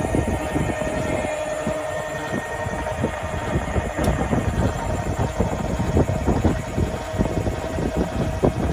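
Electric trailer tongue jack motor running steadily as it lowers the trailer's coupler toward the hitch ball. It makes a steady whine over a low, rattling gear rumble.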